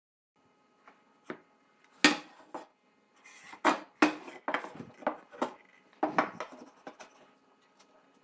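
Wooden boards being handled and set down on a wooden workbench: a series of irregular wooden knocks and clatters, the loudest about two seconds in, with a short scrape of wood on wood a little after three seconds. A faint steady hum runs underneath.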